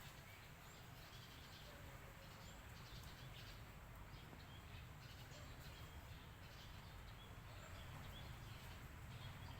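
Faint short bird chirps, scattered every second or so, over a steady low background rumble.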